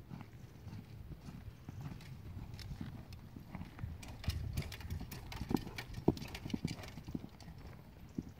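Lusitano horse's hoofbeats on a sand arena under a rider: a steady run of thuds that gets louder, with sharper clicks, around the middle.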